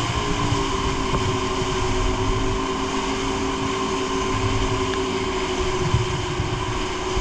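Dive boat's engine running steadily at speed, a level drone, over the rush of its churning wake and the low gusty rumble of wind on the microphone.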